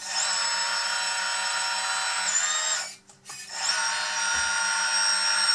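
Electric hydraulic pump of a Kabolite K966 1:14 RC wheel loader whining as it works the bucket briskly. It runs in two stretches of about two and a half seconds, with a short break about three seconds in. Its pitch drops a little near the end of the first stretch.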